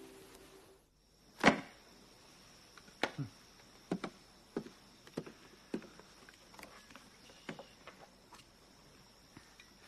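A sharp click, then a string of light, irregular knocks and taps, one or two a second and some in quick pairs, over a faint steady high whine in a quiet room.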